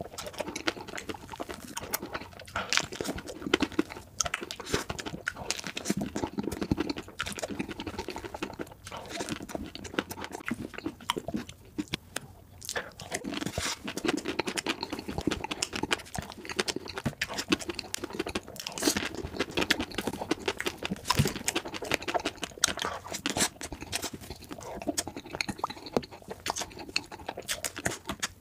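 Close-miked ASMR eating sounds sped up to double speed: rapid chewing and crunching of chocolate-coated cakes and treats, a dense run of short crackles and wet mouth clicks.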